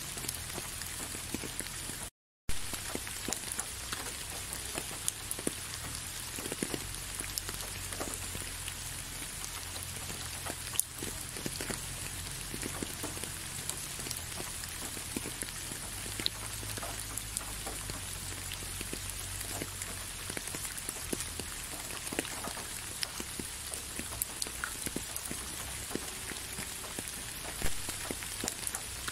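Steady rain, an even hiss with many individual drops ticking close by. The sound cuts out completely for a fraction of a second about two seconds in, then resumes.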